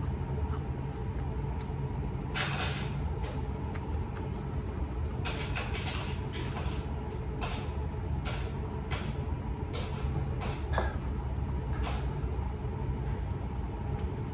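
Soda sipped through a plastic straw: a string of short, irregular sucking and breathing noises, over a steady low room hum.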